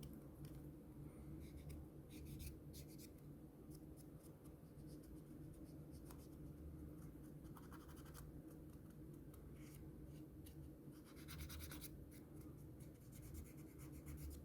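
Faint scratching of a cotton swab wet with alcohol scrubbing dirt off a phone's back cover, in several short spells of rubbing.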